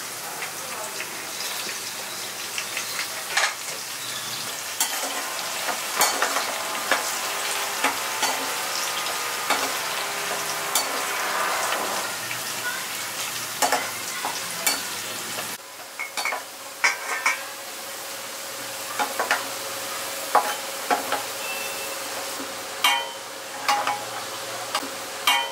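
Sliced onions deep-frying in hot oil in a kadai, with a steady sizzle, while a perforated steel skimmer stirs them and clinks and scrapes against the pan. They are being fried to dark brown.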